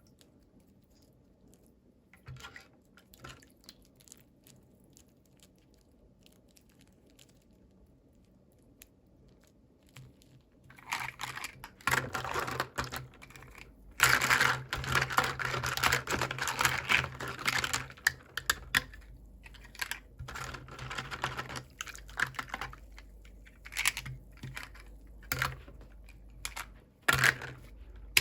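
Small plastic clicks and taps as toy packaging and miniature toy pieces are handled and opened, with a busier stretch of rustling and clicking in the middle.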